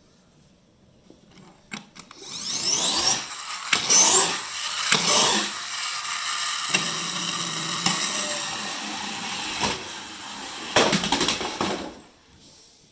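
Flywheel friction motor of a Tonka Clutch Popper toy car, freshly cleaned and lubricated, whirring as it is revved up. Three rising whines come in quick succession, then a steady whir slowly fades, with another short burst near the end.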